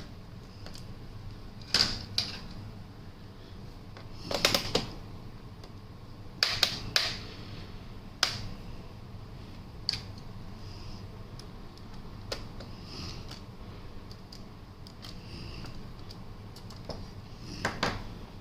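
Scattered sharp clicks and snaps, some in quick pairs and clusters, as the bottom cover of a Lenovo ThinkPad T14s laptop is worked loose from its case.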